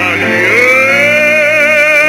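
Music: an old 1940s recording of a male singer holding a note with wide vibrato, sliding up into it about half a second in, over an accompaniment.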